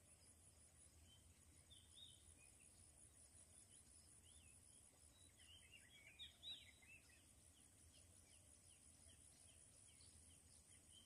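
Near silence outdoors with faint small birds chirping, a busier flurry of chirps about halfway through.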